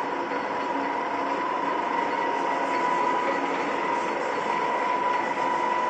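Lacfer CR1-250x3000 engine lathe running at a steady speed: a steady mechanical whir with a high whine held on one pitch, a little louder from about two seconds in.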